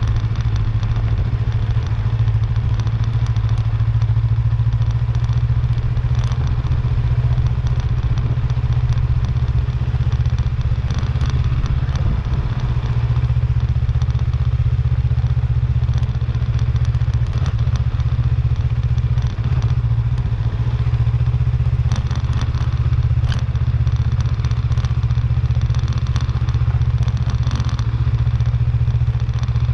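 Motorcycle engine running steadily on the move, with scattered clicks and crackle of gravel under the tyres.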